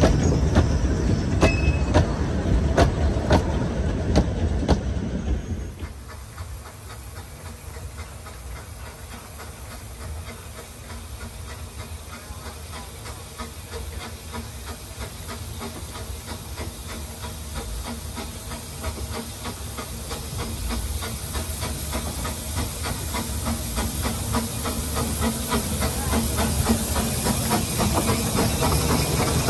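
Narrow-gauge train coaches rattling past close by, with regular wheel clicks on the rail joints, for the first five or six seconds. Then, after a sudden drop, a steam locomotive hauling its train is heard approaching, hissing steam and growing steadily louder as it draws near.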